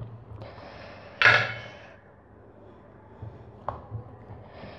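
Hand rolling and pressing a soft, oiled ball of yeast dough against a wooden board: soft rubbing and handling sounds, one louder rasp about a second in, and a small sharp knock later.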